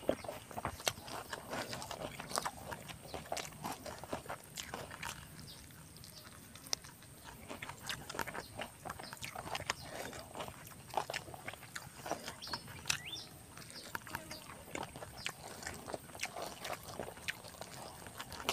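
A person chewing and eating with many small wet clicks and lip smacks, quieter for a moment around the middle.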